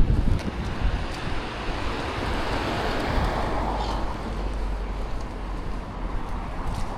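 A passing vehicle: a broad swell of road noise that builds and fades about halfway through, over a steady low rumble of wind on the microphone, with a few faint crackles.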